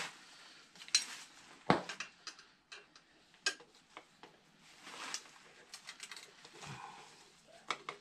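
Hand tools clinking and clicking against the metal parts of an oil burner assembly as its fasteners are worked loose: scattered sharp clicks, the loudest just under two seconds in.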